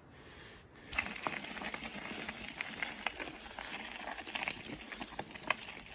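Mountain bike tyres rolling over a loose gravel and stone track: a steady crackle of crunching stones with sharper clicks and pops, starting about a second in.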